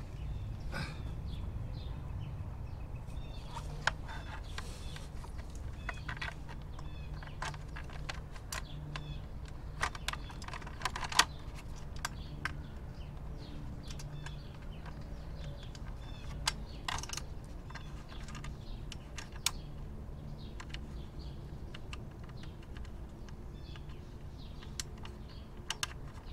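Scattered light clicks and taps of screws, washers and a plastic guard plate being handled as the screws are started by hand into clips under a motorcycle, at an uneven pace over a low steady hum.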